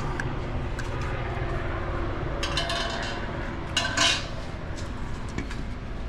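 WD-40 aerosol can spraying penetrating oil onto the exhaust's rubber hangers: two short hisses around the middle, the second louder, with a few light clicks from handling the can. A steady low hum sits underneath.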